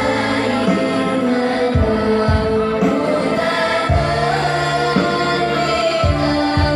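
Music with voices singing together over sustained bass notes, with a few low drum beats.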